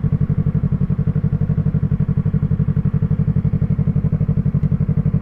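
Yamaha MT-03's parallel-twin engine idling steadily through an Arashi aftermarket exhaust with a dB killer fitted, an even low burble with no revving.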